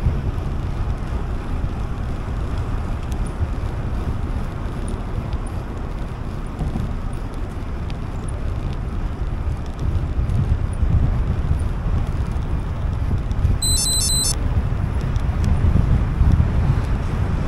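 Wind rushing over the microphone of a camera on a moving bicycle: a steady low rumble that grows a little louder toward the end. About fourteen seconds in comes a quick run of high electronic beeps.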